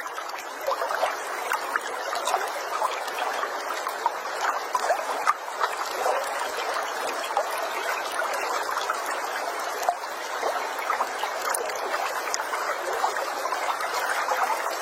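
Waterfall water splashing and trickling steadily, with many small splashes.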